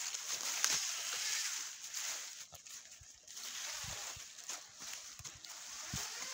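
Footsteps of a handler and a tracking dog moving quickly through thick dry leaf litter: uneven rustling and crunching of fallen leaves.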